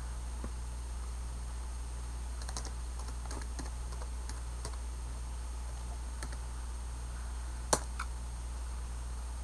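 Typing on a computer keyboard: a run of light key clicks a couple of seconds in, then a few scattered keystrokes and one sharper, louder click near the end, over a steady low electrical hum.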